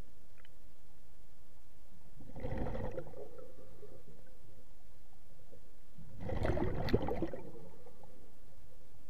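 Scuba regulator exhaust: a diver's exhaled breath bubbling out twice, each burst about a second long and some four seconds apart, the second one louder.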